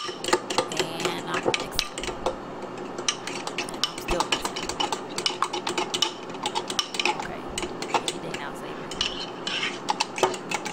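A metal fork clicking and scraping against a bowl as a ketchup-and-mustard sauce is stirred, in irregular taps throughout.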